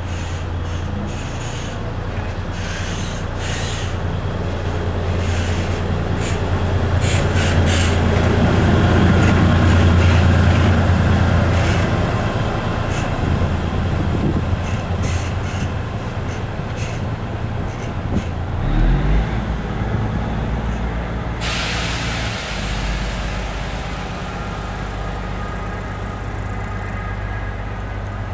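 A train running through the station, its low hum swelling and then fading, with repeated wheel clicks and clanks. About two thirds of the way in, a steady hiss starts suddenly.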